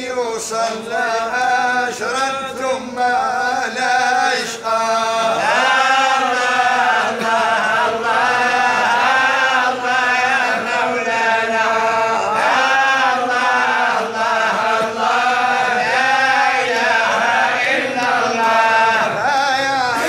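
Men chanting Sufi madih, unaccompanied devotional praise verse for the Prophet, in long held, wavering sung phrases.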